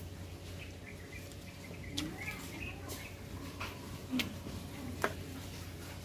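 Eating sounds: a few sharp mouth clicks and crunches from chewing, with fresh vegetable leaves being picked and torn by hand, and some faint chirps.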